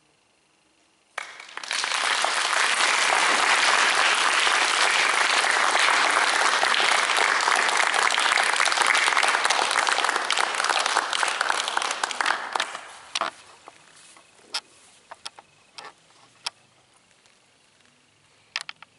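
Audience applauding: a burst of clapping starts about a second in, holds steady for about eleven seconds, then thins to a few scattered claps and dies out.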